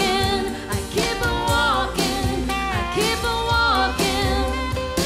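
Live acoustic band playing: a woman singing over acoustic guitars and an upright bass.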